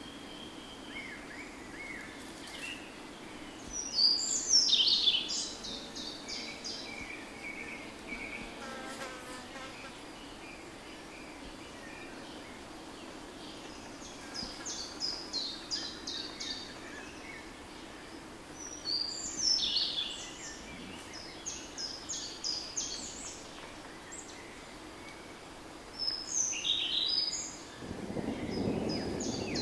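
A songbird sings the same short phrase every few seconds, a quick falling note followed by a fast run of high notes. Under it runs the faint steady buzz of a flying insect. A low rushing noise comes in near the end.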